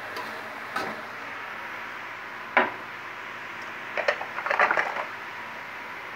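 A metal spatula knocking and scraping against a metal wok of stir-fried cassava leaves. There are a few separate knocks, the loudest about two and a half seconds in, then a quick cluster of clinks between four and five seconds, over a steady hiss.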